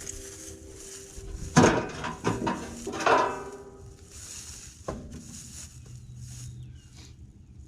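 Sheet-metal side panels of a John Deere 329D skid steer being taken off and handled: three metallic clanks that ring on, in the first few seconds, then a single sharp knock about five seconds in.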